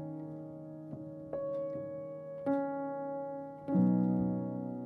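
Calm background piano music: a new chord is struck three times, and each one is left to ring and fade.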